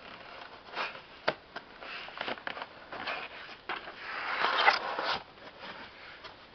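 Cardboard shipping box being opened by hand: scattered clicks and short scrapes, then a longer, louder rasping rustle about four to five seconds in that ends in a couple of sharp clicks.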